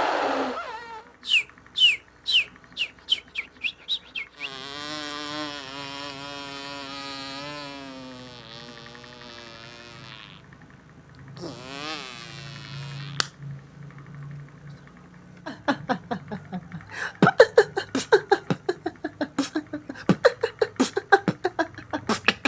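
Beatboxer's mouth and voice sound effects: a run of about eight quick falling whistle chirps, then a long wavering hum, a buzzy sweep down and up in pitch, and from about fifteen seconds in a rapid string of clicks and pops.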